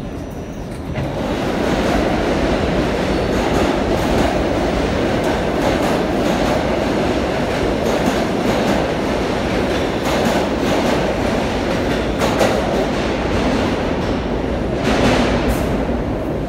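New York City Subway A train pulling into an underground station: a steady rumble of wheels on rails with clicking over the rail joints, growing louder about a second in, and a sharper burst of noise near the end as it reaches the platform.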